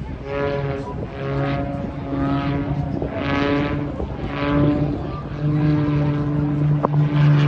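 Single-engine propeller aerobatic plane flying overhead, its engine drone shifting in pitch as it maneuvers, with repeated swells in the propeller noise and a louder stretch in the last couple of seconds.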